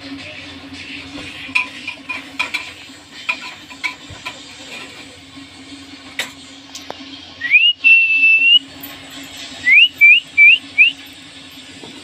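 A few faint light clicks, then a loud clear whistle about halfway through that rises and holds steady for about a second. Four short rising whistles follow in quick succession.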